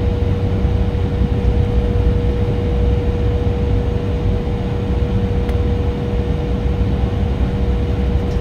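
Jet airliner cabin noise while taxiing: a steady low rumble with a constant tone held throughout.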